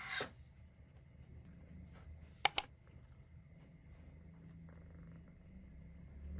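Two sharp clicks in quick succession about two and a half seconds in, over a faint low hum.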